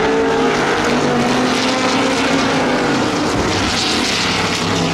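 Chevrolet V8 engine of a Lola T70 Mk3B sportscar running hard on track, a loud, steady engine note with a hissing rush building about three and a half seconds in.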